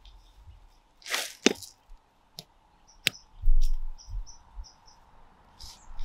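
Metal hand trowel digging into dry, compacted soil. A scraping swish about a second in, then sharp clicks as the blade strikes hard clods, and low thuds. A few faint high chirps sound in the background.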